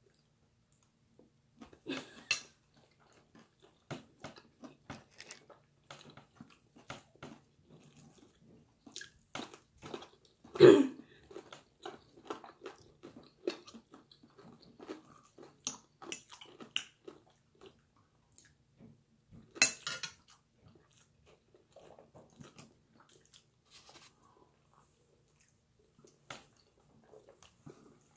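Close-up chewing and mouth sounds of a person eating a breakfast of scrambled egg, bacon and avocado, with many small clicks and a few louder knocks, the loudest about ten seconds in.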